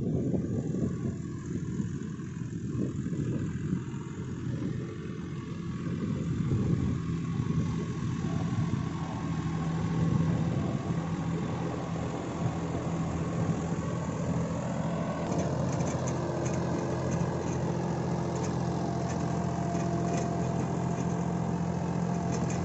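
John Deere 5405 tractor's 63 hp three-cylinder diesel engine running steadily as it pulls a laser land-leveler bucket across a field. Its even engine note comes through more clearly from about halfway on.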